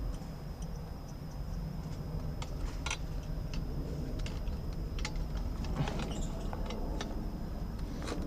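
Scattered light metallic clicks and taps of hand tools and small parts being worked on the exhaust of a Losi 5ive-T gas RC car, over a steady low background rumble.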